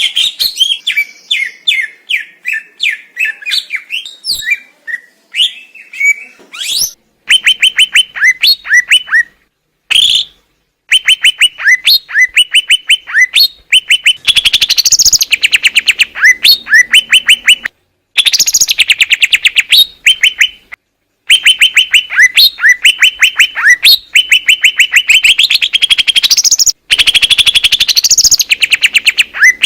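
Green leafbird (cucak ijo) singing: long, loud runs of rapid, clear whistled notes and chirps, several a second, in phrases broken by short pauses.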